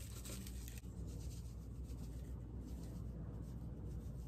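Faint rubbing and light scratching as a trout steak and a plastic seasoning jar are handled on a cutting board, busiest in the first second, over a low steady hum.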